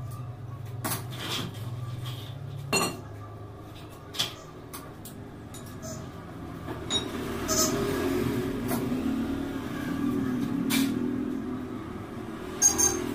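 Scattered knocks and clanks as a child's bicycle is handled, turned around and set down on a stone floor. A low hum stops about three seconds in, and a background rumble grows louder in the second half.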